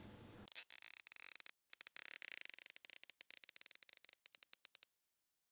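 Faint, uneven clicking and scratching from a small hand tool working a bow clamped on a wooden form. The clicks come closer together, several a second, in the second half and stop shortly before the end.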